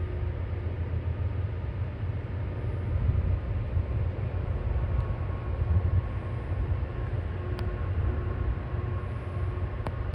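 Diesel locomotives of a freight train rumbling steadily as the train approaches slowly, with two sharp clicks in the last few seconds.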